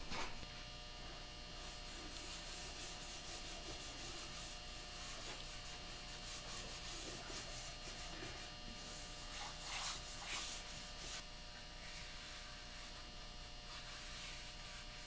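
A hand rubbing a wet oil finish, Tru-Oil mixed with pore filler, into a walnut gunstock: faint, irregular rubbing strokes that die down in the last few seconds, over a steady electrical hum.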